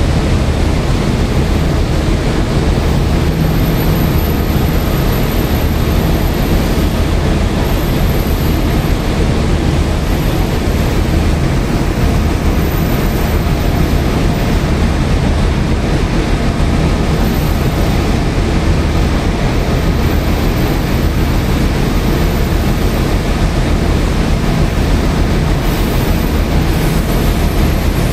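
Steady rumble of a rake of passenger coaches rolling slowly along the rails as they are pushed into the station.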